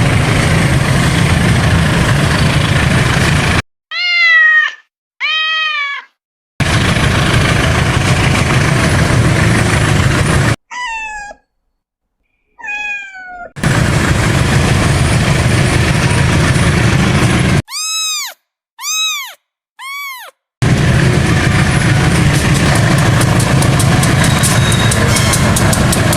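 Abrupt edited cuts between a train running, a loud steady rumbling noise, and short cat meows in the gaps, two or three at a time. The train sound returns four times, each cut off suddenly.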